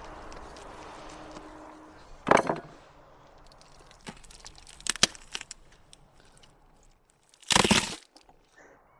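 Bison rib cage being broken apart by hand and knife: sharp cracks as ribs and cartilage snap, one about two seconds in and another around five seconds, then a longer, loud crunch near the end.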